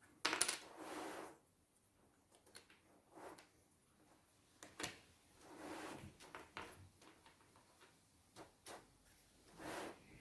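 Wooden jigsaw puzzle pieces being handled: a few sharp, light clicks as pieces tap together or on the table, and three or four short sliding scrapes about a second long.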